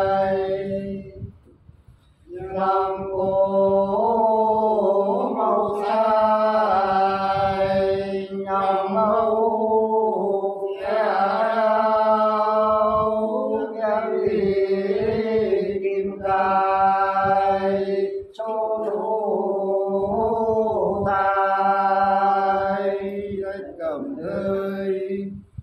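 A man singing soọng cô, the Sán Dìu folk love-song style, solo and unaccompanied, in long held notes that waver and slide. There is a short break for breath about two seconds in.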